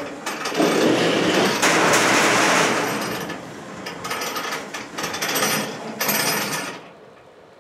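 Welded steel packing cage being lifted and pulled off the top of a cast-iron power hammer: loud metal clanking, rattling and scraping. It comes in bursts and stops about seven seconds in.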